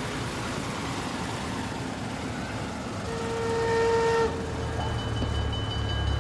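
A vintage vehicle driving, with steady road and wind noise, and a horn sounding loudly for about a second, ending abruptly about four seconds in. Then steam locomotive 80 039 comes on as a low rumble with a steady high tone.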